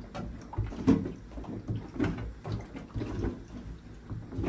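Scattered light knocks and clicks with handling rustle, from someone moving about a bathroom and handling things.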